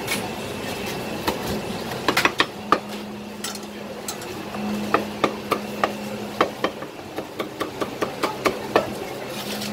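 Cleaver chopping roast duck on a thick wooden chopping block: sharp knocks, a quick few about two seconds in, then a steady run at about three a second through the second half.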